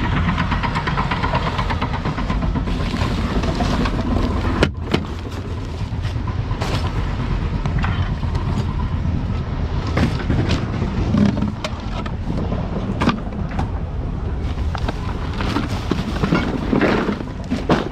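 Junk being thrown out of a truck onto a landfill pile: irregular knocks, clatters and thuds of items landing, over a steady low rumble.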